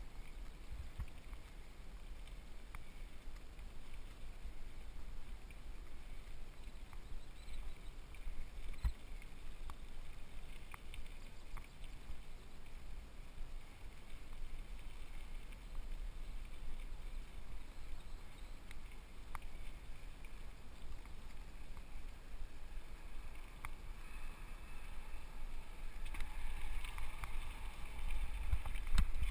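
Specialized FSR mountain bike riding a dirt singletrack, heard from a helmet-mounted camera: a steady low rumble of wind and tyre noise, with scattered clicks and rattles from the bike. It grows louder near the end, with a thump just before it stops.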